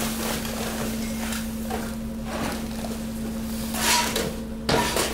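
Garbage tumbling into a compactor hopper: plastic bags, paper and litter rustling and clattering as they land, loudest about four seconds in. A steady machine hum runs underneath.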